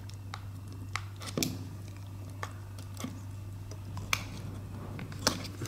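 Scattered small clicks and scratches as fingers and a fingernail pry at the side port cover of a CAT S40 rugged phone, about seven in all, over a low steady hum.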